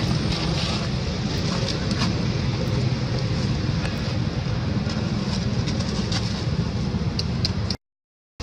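Steady wind rumble on the microphone with scattered faint clicks; the sound drops out completely for about half a second near the end.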